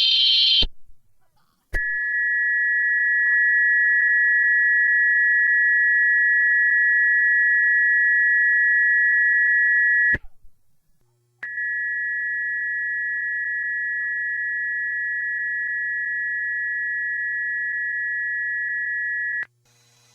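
Emergency Alert System attention signal: a steady two-tone alert tone sounding for about eight seconds, breaking off with a click, then sounding again, somewhat quieter, for another eight seconds before cutting off sharply. A brief burst of screeching header data ends just at the start.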